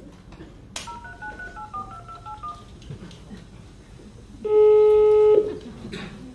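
Telephone keypad tones: a click, then a quick run of about ten short two-note dialing beeps as a number is dialed. A few seconds later comes one long, loud, steady ring tone of about a second, the ringback of the call going through.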